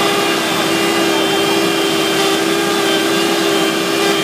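Asphalt paver running steadily at close range, its engine and machinery giving a constant low hum over a broad mechanical noise.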